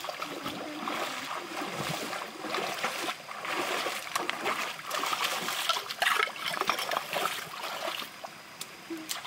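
Bare feet wading and splashing through a shallow stream, irregular splashes over the steady trickle of water running between rocks.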